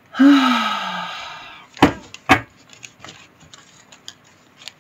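A deck of tarot cards being shuffled by hand: a loud rustling burst lasting about a second and a half, then two sharp taps of the cards, then faint small clicks.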